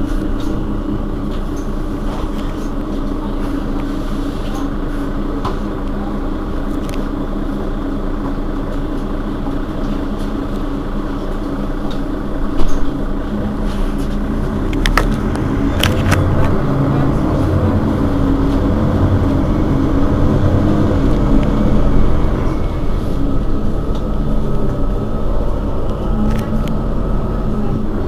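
Mercedes-Benz Citaro Facelift city bus's diesel engine idling with the bus standing still, a steady hum. A deeper rumble grows louder from about halfway through, and a few sharp clicks come around the middle.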